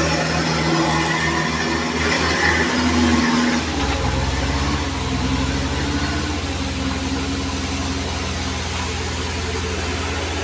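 Diesel engine of a Mitsubishi Canter truck loaded with oil-palm fruit, running steadily under heavy load as it crawls up a muddy slope.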